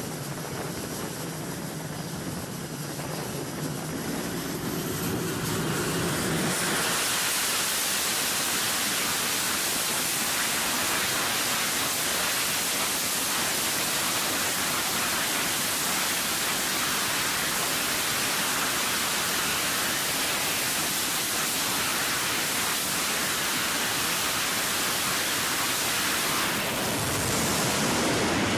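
Twin jet engines of an F/A-18 Hornet on a carrier catapult: a whining run-up that turns, about six seconds in, into a steady, loud full-power rush of noise, held as the jet waits for launch and growing louder near the end.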